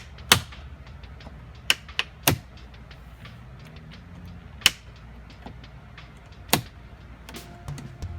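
Plastic door trim being worked free: sharp, irregular clicks and snaps, about half a dozen loud ones among fainter ticks, as the piece is pried and slid off its clips and hooks.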